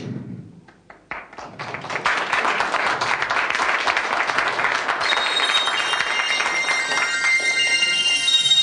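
Audience applauding after a spoken welcome. About halfway through, a short instrumental tune starts under the clapping and carries on alongside it.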